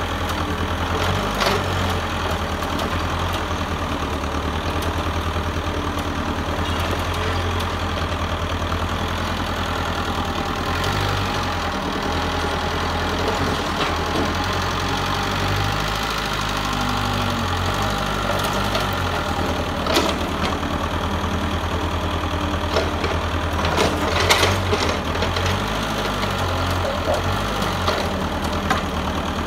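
Mitsubishi excavator's diesel engine running steadily, with a few sharp knocks in the second half.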